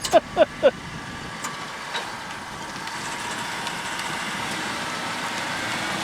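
A 1993 Chevrolet Caprice station wagon accelerating hard, heard from inside the cabin: engine and road noise building steadily, with a faint whine rising near the end.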